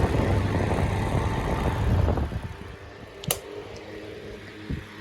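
A 12-inch electric box fan running on medium speed with a steady motor hum. A loud rumbling noise fills the first two seconds and then fades out, and there is a sharp click about three seconds in.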